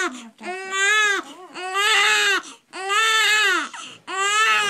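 A baby boy crying hard: a run of about four loud, even wails, each about a second long, with short breaks for breath between them.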